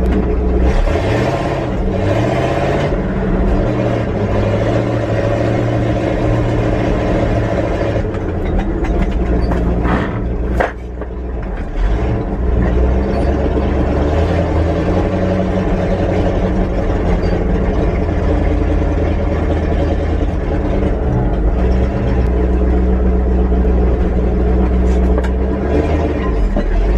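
Engine of a 1974 Chevrolet C60 truck, heard from inside the cab while driving. The engine note climbs in pitch about a second in, falls away briefly with a click about ten and a half seconds in, then pulls on steadily.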